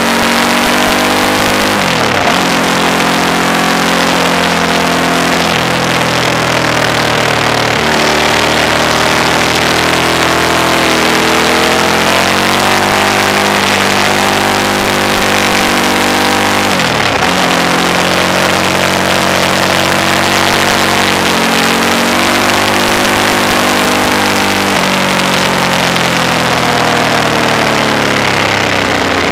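Suzuki TL1000S's 90-degree V-twin engine pulling hard on track, revs climbing in long pulls and dropping sharply at gear changes about 2, 8 and 17 seconds in. Heavy wind and tyre roar on the side-mounted camera's microphone.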